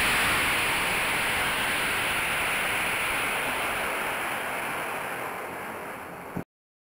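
Model rocket motor's exhaust hiss at lift-off, fading steadily as the rocket climbs away, then cutting off suddenly near the end.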